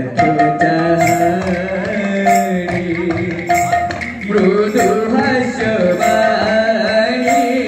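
Kirtan singing: a man's voice, amplified through a microphone, holds and bends long notes over a drum. Bright cymbal clashes keep time about once a second.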